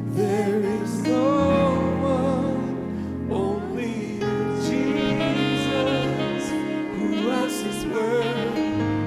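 Worship band music: sustained chords with a wavering lead melody over them, held out as the song winds down.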